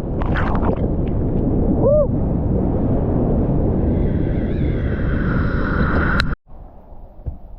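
Rushing whitewater with heavy wind buffeting the microphone, loud and steady. It cuts off abruptly about six seconds in, leaving only faint, quieter sounds.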